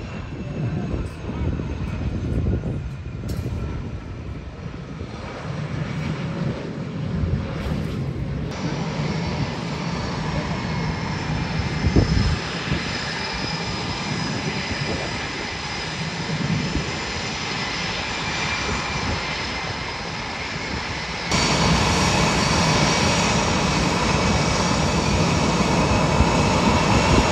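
Jet engines of Blue Angels F/A-18 Super Hornets running as the jets roll and taxi: a steady rushing noise with a high whine that slowly falls in pitch. The sound jumps abruptly a few times and is loudest from about twenty seconds in.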